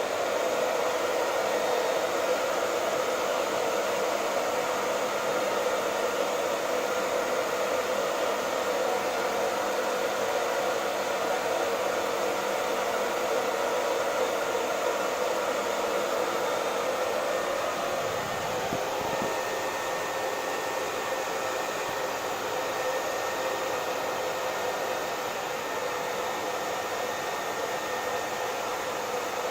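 Hair dryer blowing steadily, a continuous whooshing hum of motor and fan with a few faint steady tones. It eases slightly in level about 18 seconds in.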